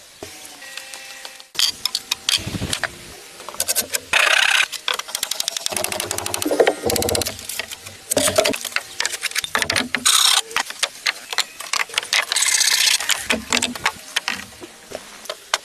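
Woodworking sounds from building a log house: rapid strings of clicks and knocks, broken by several short bursts of scraping or rasping noise.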